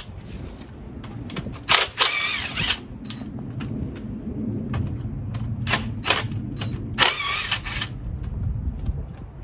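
Tool work on a car's A/C compressor mounting: scattered clicks and knocks, with two short bursts of rapid ratcheting about two seconds in and about seven seconds in.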